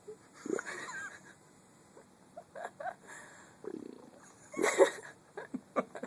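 Human stomach gurgling: a string of short squeaky, bubbling gurgles and rumbles, the loudest one a little before the end.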